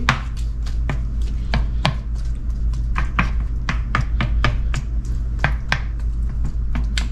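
Wooden spoon stirring diced raw fish and red onion in lime juice in a plastic bowl: irregular clicks and knocks of the spoon against the bowl, a few a second, over a steady low hum.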